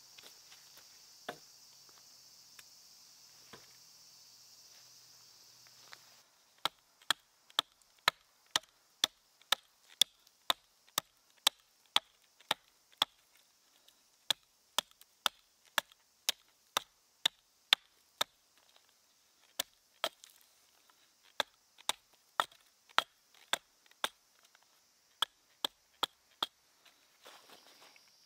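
Hatchet chopping birch wood in steady, sharp blows about twice a second, starting some six seconds in, with a couple of brief pauses. Before the chopping, a steady high insect hiss.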